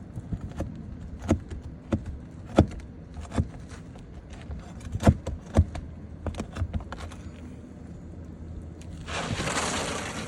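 Sharp, irregular knocks of a hand tool working at the nails under asphalt roof shingles, about half a dozen, then a scraping rush lasting about a second near the end.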